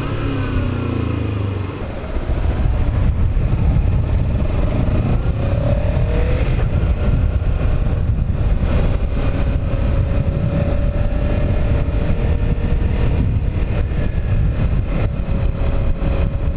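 Kawasaki Ninja 300 parallel-twin motorcycle running steadily, then pulling away about two seconds in. It is ridden on with heavy wind rumble on the helmet microphone, and the engine note rises briefly before holding steady.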